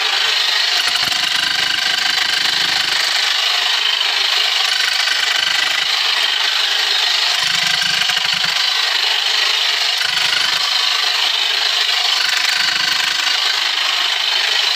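Handheld power hammer drill running steadily as it bores into the rock face.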